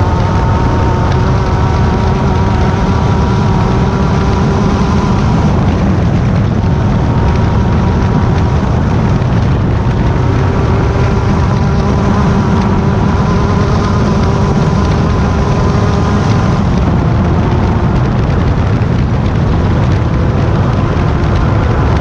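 Class 10 off-road race car's engine running hard at fairly steady high revs, loud, over a heavy low rumble. Its pitch dips briefly a couple of times.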